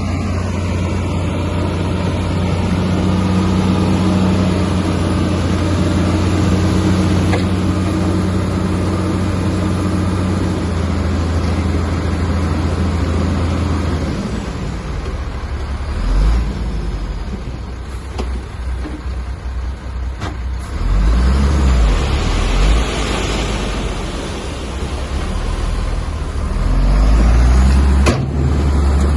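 Heavy diesel engine of earthmoving machinery running under load. It holds steady for about the first half, then changes, with several deep surges in power and a few sharp knocks.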